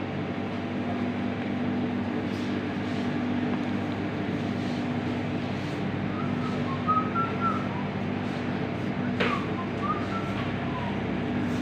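Steady low machine hum of a shop's background. Short, high chirping notes come in twice, about six and ten seconds in, and there is one sharp click just after nine seconds.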